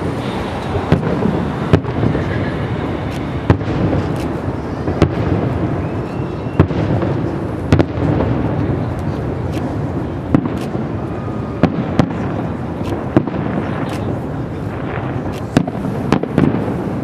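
Aerial firework shells bursting: sharp bangs every second or two, some closer together, over a steady background noise.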